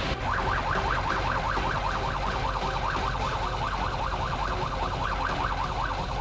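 Emergency-vehicle siren in a fast yelp, its pitch sweeping rapidly up and down about seven times a second, over a steady noisy background; it starts just after the beginning and stops shortly before the end.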